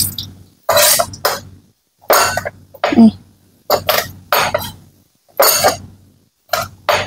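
Kitchen knife striking a cutting board as garlic is smashed and chopped: about a dozen irregular heavy knocks, often in pairs, separated by short pauses.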